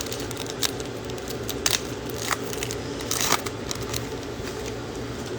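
Plastic trading-card pack wrapper crinkling and crackling as a pack is torn open and handled, with a few short sharp snaps.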